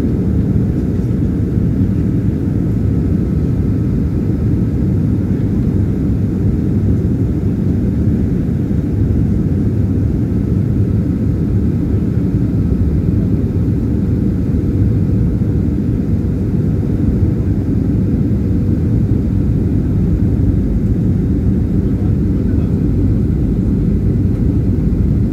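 Steady low rumble of airflow and the CFM56-3 turbofan engines heard inside the cabin of a Boeing 737-300/500 on final approach with flaps extended, with a faint steady whine above it.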